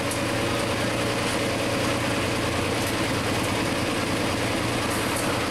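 Super Stock pulling tractor's engine running steadily and loudly with a fast, even firing rhythm, as the tractor sits hooked to the sled.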